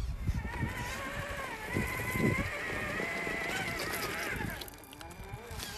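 Traxxas TRX-4 RC crawler's electric motor and gearbox whining as it creeps up rock, the pitch wavering with the throttle, with a couple of low knocks about two seconds in. The whine drops away a little after four seconds.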